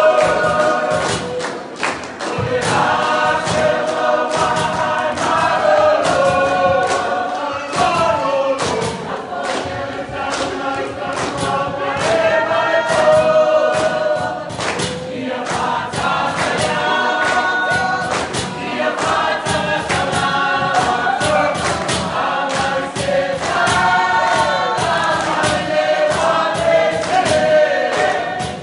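A large mixed group singing a Samoan song together in chorus, kept to a steady beat of sharp, regular percussive hits.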